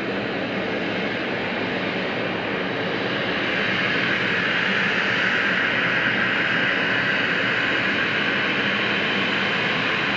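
Twin turbofan engines of an Embraer E-Jet running at taxi power, a steady jet whine and hiss that grows louder about four seconds in as the aircraft turns toward the listener.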